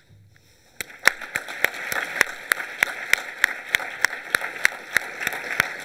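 Audience applauding, starting about a second in, with one person's hand claps close to the microphone standing out sharply at about three a second.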